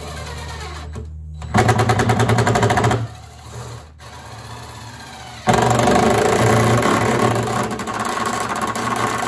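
Power drill boring out the plastic bung of a stock tank with an 11/16 wood bit, with a fast rattling chatter. It runs twice: about a second and a half in for a second and a half, then again from about five and a half seconds on.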